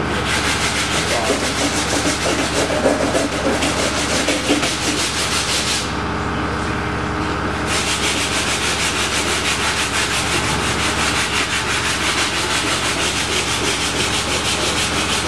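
Sanding on the shaped body-filler surface of a custom motorcycle rear fender: a steady scratchy rasp that stops for about two seconds partway through, then resumes, over a constant low hum.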